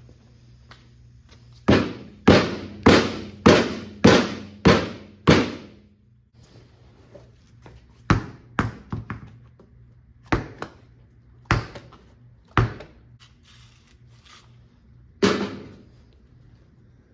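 Heavy knocks in the workshop: seven evenly spaced strikes a little over half a second apart, then a handful of scattered single knocks, each with a short ringing tail.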